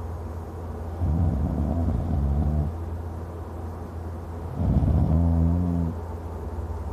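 A man snoring very loudly: two heavy snores, about a second in and past four and a half seconds in, each a rough rattle that settles into a held pitched drone, with quieter breathing between.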